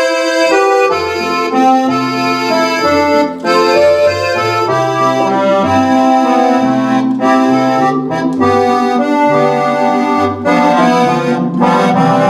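Roland FR-8X digital accordion playing a melody in full chords over a stepping bass line. An organ voice is layered behind the accordion reeds, the Cordovox-style sound of a 1950s–70s electronic accordion.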